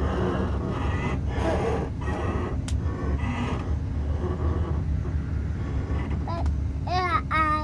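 Steady low running rumble of an Xplorer diesel railcar, heard from inside the carriage. Passengers' voices come over it, with a higher-pitched voice about seven seconds in.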